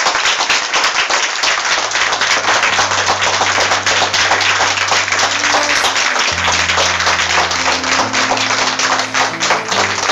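Audience applauding steadily, with sustained low music notes beneath that shift pitch a few times.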